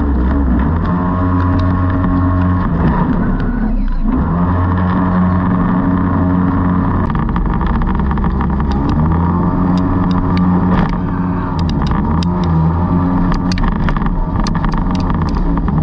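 Jetboat engine running steadily under way, its note stepping up and down a few times, over the constant rush of water along the hull. The engine note breaks off briefly about four seconds in.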